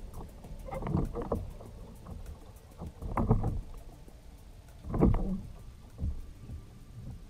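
Water sloshing and knocking against a fishing kayak on a river, in about four separate surges roughly two seconds apart over a low rumble.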